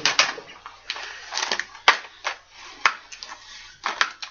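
Stiff plastic blister packaging being cut and pried open: irregular crackling and crinkling with several sharp snaps.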